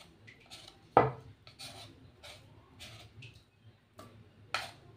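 A wooden spoon and utensil scraping and knocking in a stainless steel bowl of stiff bread dough, in irregular strokes, with a louder knock about a second in and another near the end.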